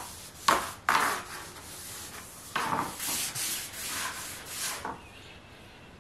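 Cloth rag rubbing wood stain along thin wooden trim strips, in several short wiping strokes that die down near the end.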